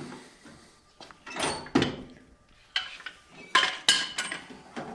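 A handheld metal tool clinking and clanking against metal as it is handled: about half a dozen sharp, irregularly spaced knocks, a few with a short metallic ring.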